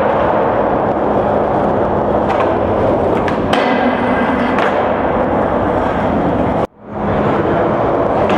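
Skateboard wheels rolling on smooth concrete, a steady rumble with a few sharp clacks of the board, and a scrape as the board rides along a concrete curb about three and a half seconds in. The sound drops out suddenly for a moment about two-thirds of the way through.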